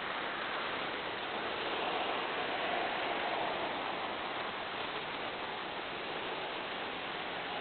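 Steady rushing noise through an outdoor security camera's microphone, swelling a little about three seconds in as a car passes on the street.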